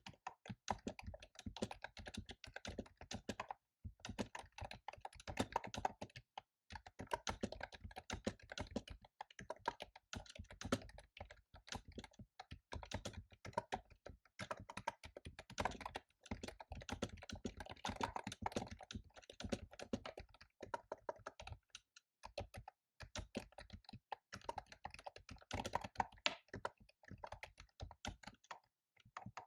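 Fast typing on a computer keyboard: dense runs of sharp key clicks and clacks, broken by several brief pauses.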